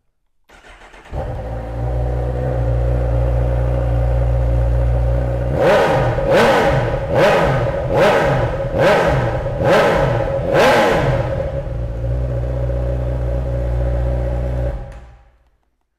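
Honda CB1000R Plus's 998 cc inline-four, breathing through an aftermarket GP S1 Pro silencer, starting about a second in and settling into a steady idle. It is then revved in about six quick throttle blips, a little under a second apart, drops back to idle, and is switched off, cutting out suddenly near the end.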